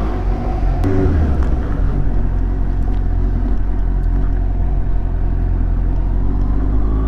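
Suzuki GSX-S750's inline-four engine running at low revs as the motorcycle rolls slowly along a road, under a heavy low rumble of wind noise on the microphone.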